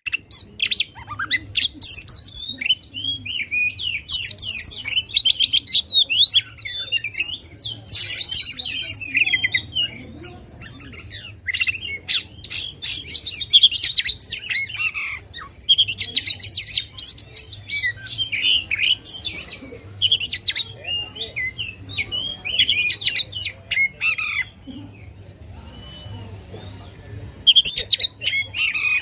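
Oriental magpie-robin (kacer) singing loudly and continuously: varied whistled phrases broken by fast rattling runs of repeated notes, with a brief lull about 25 seconds in.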